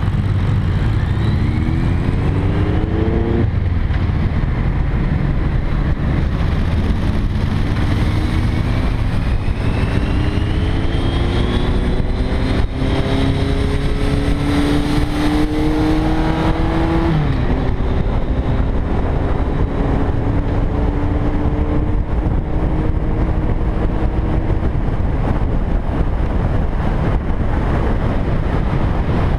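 Motorcycle engine pulling away from a stop and accelerating through the gears. Its pitch climbs in each gear and drops at the shifts, about three and a half and seventeen seconds in, then holds steady at cruising speed. Heavy wind rumble on the microphone runs under it.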